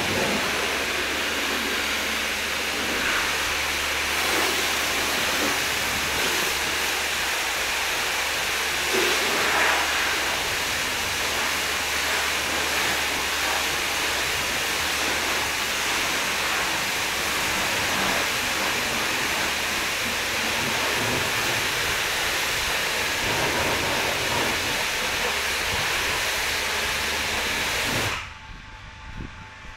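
High-pressure washer spraying water onto a car: a steady hissing spray with a steady low hum underneath. The spray cuts off suddenly about two seconds before the end.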